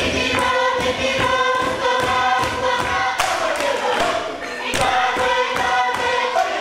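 Group of voices singing a Pacific Island dance song in harmony over a fast, even percussive beat, with louder sharp hits about three seconds in and again near five seconds.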